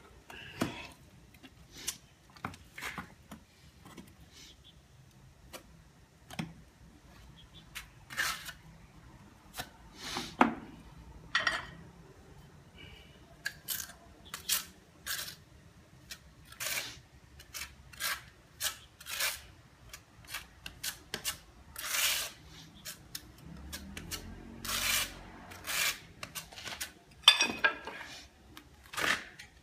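Notched steel trowel scraping mortar out of a bucket and spreading it over the back of a floor tile: many short, irregular scraping strokes, back-buttering the tile before it is laid.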